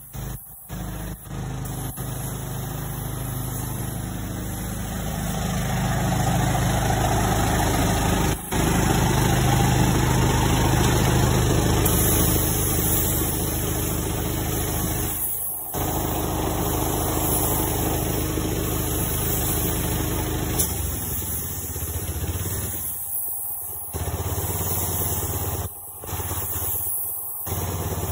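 An engine running steadily. It grows louder a few seconds in and cuts out briefly several times.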